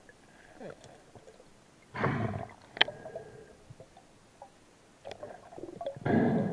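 Muffled water noise from a camera held underwater: two short rushing swooshes of water movement about four seconds apart, with a sharp click between them and small ticks and knocks.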